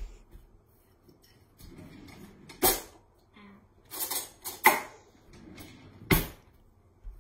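A kitchen cutlery drawer pulled open and pushed shut, with metal cutlery clattering as a spoon is taken out: a few separate sharp knocks and rattles.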